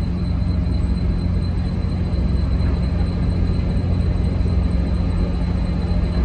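Vehicle ferry's engines running with a steady low drone and a faint, steady high whine above it.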